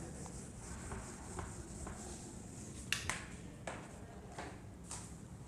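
Eraser wiping a board in short strokes: a handful of quiet swishes and clicks, the firmest about three seconds in.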